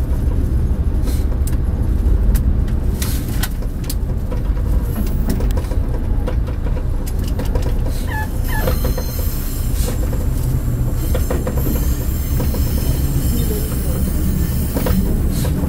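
Diesel railcar running along the track: a steady low rumble of engine and wheels with scattered clicks from the rails, and a brief wheel squeal on a curve about eight seconds in.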